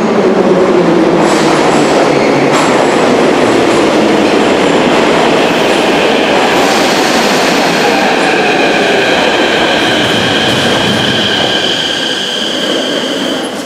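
Metro train pulling into the station: a loud rush and rumble of wheels on rails as the cars sweep past. In the second half a high steady squeal from the wheels and brakes grows stronger as the train slows to a stop.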